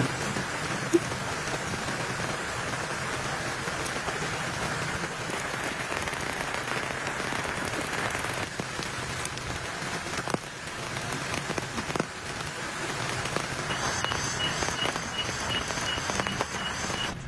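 Steady rain falling, with a few louder single drops striking now and then. Near the end a regular series of short high peeps joins in, about two or three a second.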